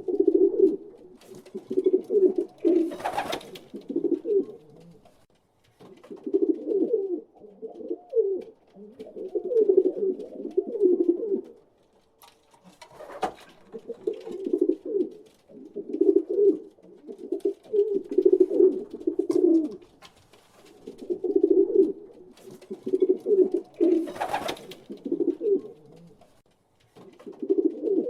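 Pigeons cooing: low, throaty coos in overlapping bouts of a few seconds each, with short pauses between them. A few brief, short rustling noises cut across the cooing about three seconds in, near the middle and near the end.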